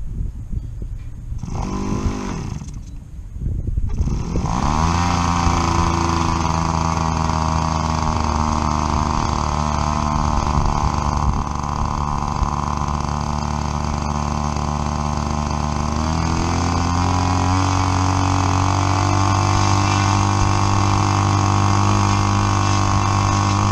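A new model airplane engine being run in: a short first burst about two seconds in, then it starts about four seconds in and runs steadily, its pitch stepping up a little about two-thirds of the way through.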